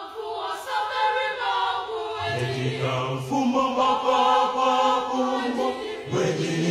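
A choir singing long held notes in several voices, with a brief break about six seconds in before the next phrase begins.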